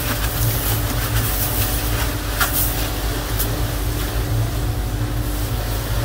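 Steady low rumble of a fishing boat's engine, with crushed ice hissing and rattling as it is poured over sardines in the fish hold. Two sharp knocks come about two and a half and three and a half seconds in.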